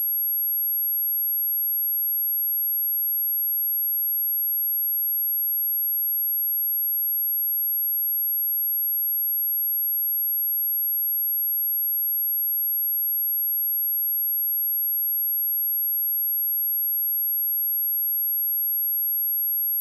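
Steady, unbroken high-pitched 11511 Hz sine-wave test tone, a single pure whistle-like tone with no variation.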